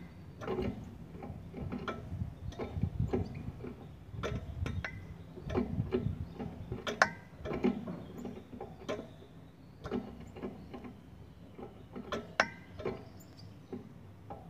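Irregular light clicks and taps in a goldfinch breeding cage, a few of them carrying faint short chirps.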